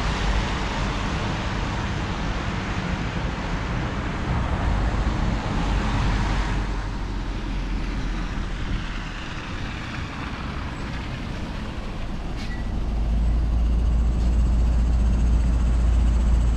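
Traffic passing on a wet, slushy city road, with tyre hiss. About thirteen seconds in, a city bus draws up alongside and the low rumble of its engine grows louder.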